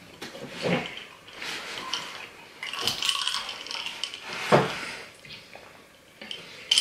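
A drink being sipped through a straw from a lidded mason-jar cup, with knocks and clinks as the jar is picked up and handled, and short slurps and swallows of the liquid.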